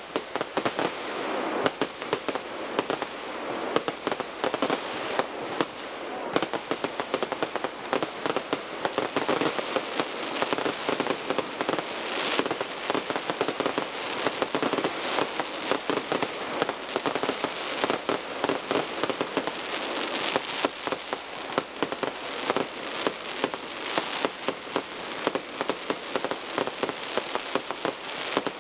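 Fireworks nitro-show barrage: a dense, unbroken rapid-fire stream of launches and bursts, many sharp reports a second with crackle, going on without a pause.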